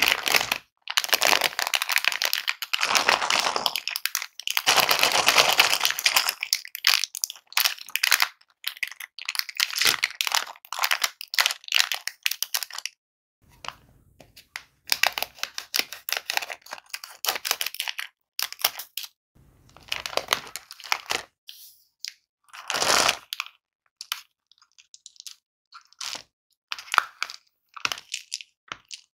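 Thin plastic candy wrapper crinkling and crackling as it is handled, with snips and short clicks as scissors cut the bag open. Near the end, small candy-coated chocolate eggs tumble out into a palm.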